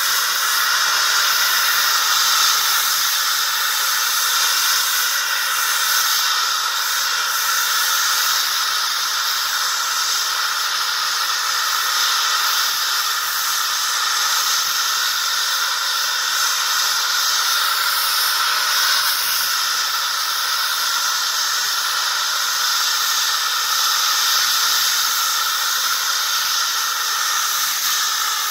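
RA Microturbines 500 model jet turbine running steadily in the JetDrone's turbine housing: a loud, even, high jet hiss with no rise or fall in pitch.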